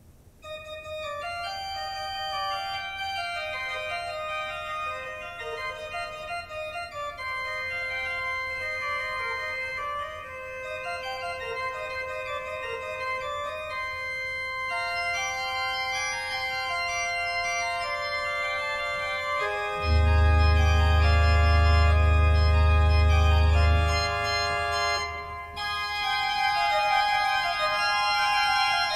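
Church organ playing solo. A piece begins softly about half a second in with sustained upper-register notes, and about twenty seconds in deep bass notes come in louder for about four seconds before the playing softens again.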